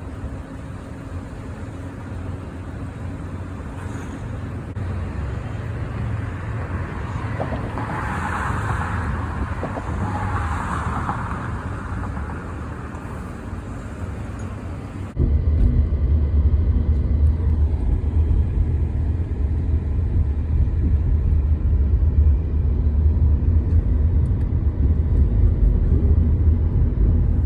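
Vehicle engines running at a highway construction site, with a hiss in the middle. A little past halfway the sound changes suddenly to a louder, deep, steady engine rumble.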